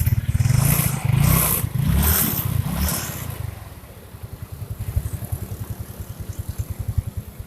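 First-generation Yamaha Mio scooter's single-cylinder engine revved several times in the first three seconds, then settling back to a steady idle. It is running after repair of the kick-starter shaft that had been rubbing against the crankshaft, with no grinding expected from the CVT area.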